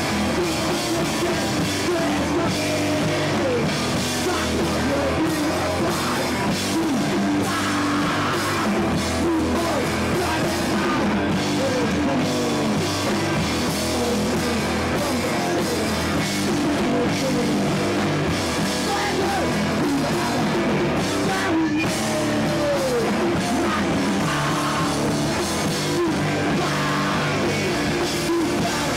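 Hardcore punk band playing live: distorted electric guitar, bass and drum kit at a steady loud level, with a sung lead vocal over them.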